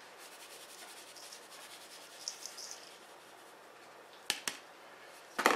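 Dry spice mix shaken out of a plastic container onto ground beef in a steel bowl: a faint rustling patter of powder, then a few sharp knocks near the end, the loudest just before it ends.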